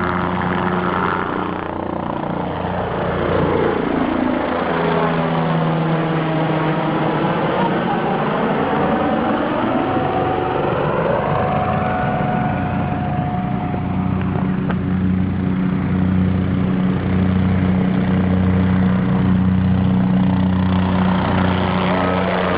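Kiowa helicopter flying low past, its rotor and engine sound sweeping through a pass a few seconds in and again near the end. Underneath runs a steady engine hum that beats slowly in the second half.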